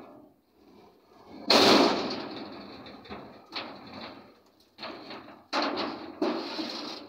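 Heavy concrete sewer pipes knocking against each other and the timber planks as they are rolled across a truck bed. There is one loud clunk about a second and a half in, then four or five more knocks, each dying away over about a second.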